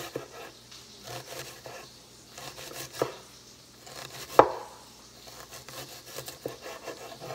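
Kitchen knife slicing through an onion and knocking on a wooden cutting board: a few separate, unevenly spaced strokes, the loudest about four and a half seconds in.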